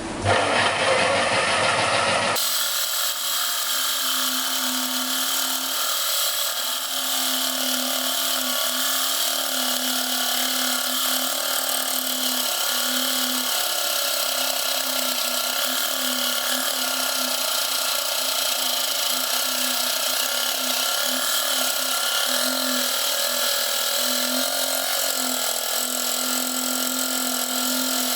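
Homemade scroll saw driven by an ordinary electric jigsaw, running steadily and sawing through thick, very hard laminate flooring with a small fine blade, cutting only with difficulty. The sound changes abruptly about two seconds in.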